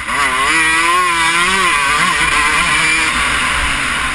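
Motocross dirt bike engine revving under throttle, heard from a camera mounted on the bike. The pitch climbs and wavers as the throttle is worked, drops about two seconds in, then runs lower and steadier.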